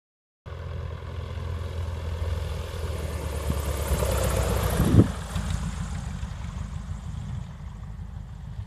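Single-engine light aircraft's piston engine and propeller at take-off power, growing louder as it approaches. It passes close about five seconds in, then drops in pitch and fades as the aircraft goes away down the strip.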